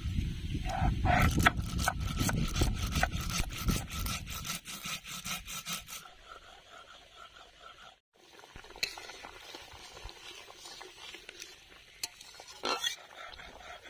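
Mustard seeds being crushed and ground on a stone grinding slab (sil-nora) with a stone muller: rapid stone-on-stone rubbing and crunching strokes that die away about five or six seconds in. After a short gap there is a faint, steady hiss with a few light clicks.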